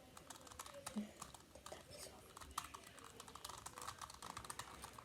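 Faint, irregular clicking and tapping of plastic Rubik's cube pieces being handled: a broken cube with loose pieces being picked up and fitted back together.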